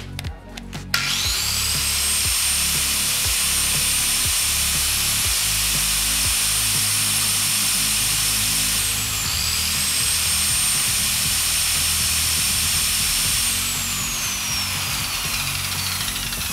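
An electric disc sander starts about a second in, its whine rising and then holding steady while the steel cross knife of a meat grinder is ground flat against the abrasive disc with a harsh hiss. The pitch dips briefly midway. Near the end the motor is switched off and its whine falls as the disc spins down. Background music plays underneath.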